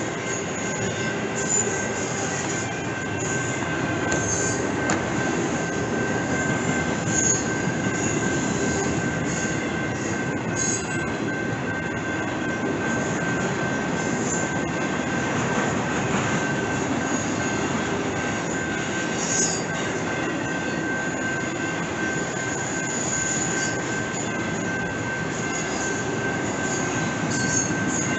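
Intermodal freight train cars rolling past at steady speed: a continuous rumble of wheels on rail. A thin steady high tone runs under it, with short high squeals now and then.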